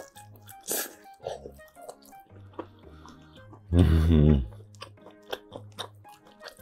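Background music under soft chewing and eating noises from a person eating from a rice bowl with chopsticks. About four seconds in comes a short, loud hum from the eater's closed mouth, lasting under a second.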